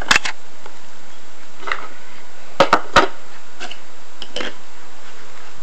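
Scattered light clicks and knocks of small plastic toy figures being tapped along a tabletop and handled, three in quick succession about two and a half seconds in, over a steady background hiss.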